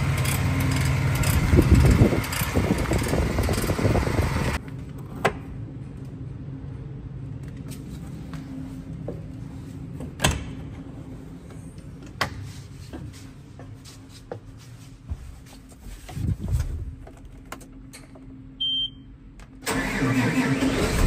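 An engine idling for the first few seconds, then quiet clicks and knocks of a tractor cab door latch and steps. Near the end a short beep from the cab, then the John Deere 8R340 tractor's diesel engine cranks and starts as the ignition key is turned.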